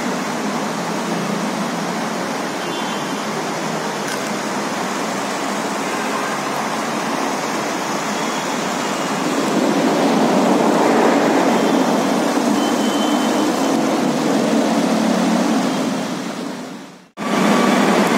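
Kochi Metro train coming into an elevated station: a steady rushing rumble grows louder about halfway through, fades, and breaks off abruptly about a second before the end, after which the train's noise resumes.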